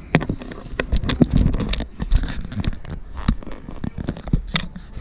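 Handling noise from a phone or camera being moved and set up: irregular knocks, taps and scrapes close to the microphone, with rustling in between.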